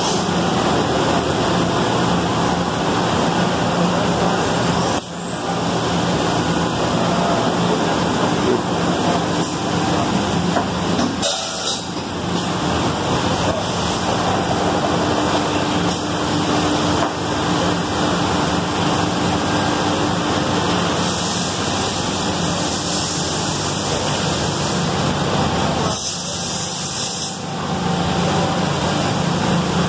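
Loud, steady machine-shop noise: a broad hiss over a low hum, briefly dipping a few times.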